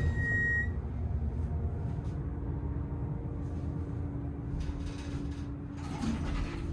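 Passenger elevator car in motion: a steady low rumble with a low hum from the drive. A single high electronic beep sounds at the start, and a few rattles and clicks come near the end.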